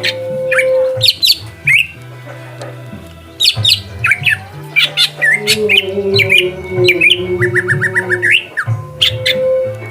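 Cucak hijau (green leafbird) calling with sharp, quick down-sweeping notes, then a fast run of about seven notes near the end. A pop song with a steady bass line plays underneath.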